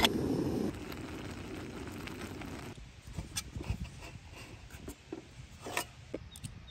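Canister gas stove burning under a titanium camp pot, a steady low rush, as the pot's metal lid clinks into place at the very start. The rush drops under a second in and dies away about three seconds in, leaving a few light knocks and scrapes of wooden chopsticks in the pot of noodles.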